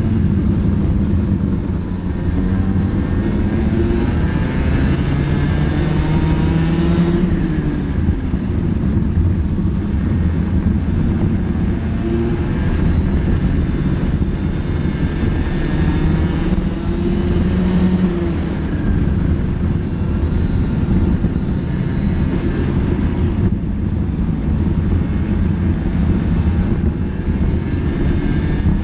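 Racing go-kart engine at race speed, recorded onboard from the kart itself: its pitch climbs as it accelerates and drops off into the corners, several times over, above a steady low rumble.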